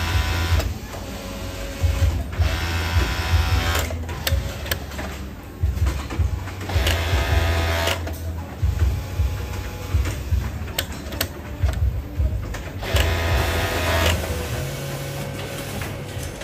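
Industrial overlock sewing machine (serger) running in several short bursts as fabric is fed through, stopping between them, with clicks in the pauses.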